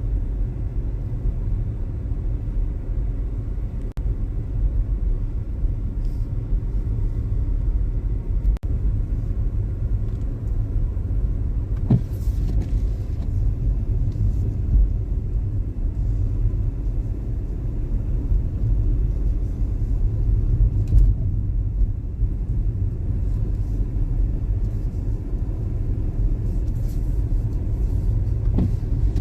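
Steady low rumble of a car driving over a snowy road, heard from inside the cabin, with a knock about twelve seconds in and another near the end.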